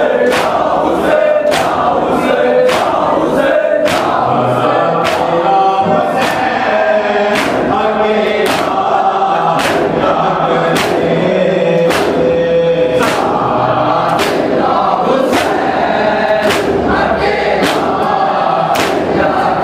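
A noha sung by male reciters with a crowd of men chanting along in unison. The crowd's palms strike their chests (matam) in a steady beat of about two strikes a second.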